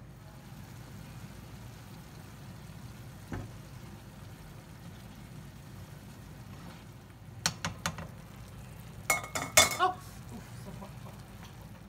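A utensil clinking against a frying pan as linguine is tossed in a cream sauce: a few sharp clicks about seven and a half seconds in, then a louder cluster of ringing metallic clinks about nine to ten seconds in, over a steady low hum.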